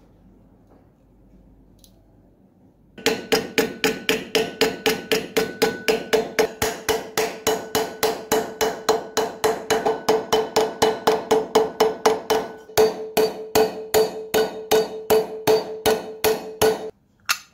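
A hand hammer striking metal in a fast, even series of blows, about three a second, each with a short ringing note, with a brief hitch about halfway through and one last blow after a pause near the end.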